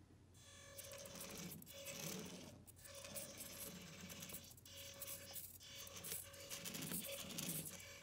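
Micro RC car's tiny drive motor and gears whirring in stop-start spells as the car is driven back and forth, with short pauses between runs.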